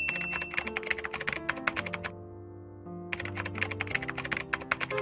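Keyboard-typing sound effect of rapid clicks, pausing briefly about two seconds in and then resuming, over light background music.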